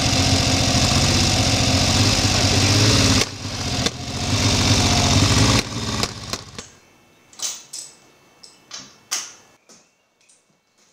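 Triumph Trident T160's three-cylinder engine idling, dipping briefly about three seconds in, with a spark plug in the left-hand cylinder breaking down, oily from long disuse. The engine sound dies away about six seconds in, leaving a few scattered knocks and clicks.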